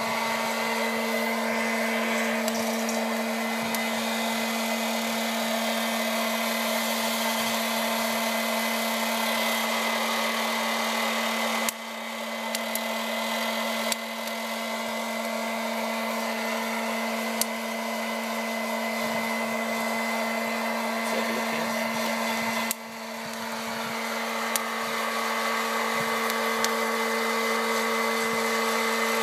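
Hot-air popcorn popper running as a coffee roaster, beans tumbling in its chamber: a steady motor hum with rushing air, and a few faint clicks.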